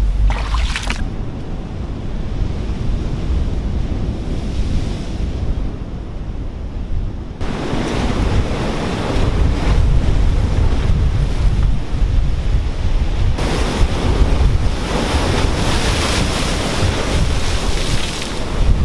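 Ocean surf breaking and washing over the rocks, with wind rumbling on the microphone. The rush of water comes up sharply about seven seconds in and grows louder again a few seconds later.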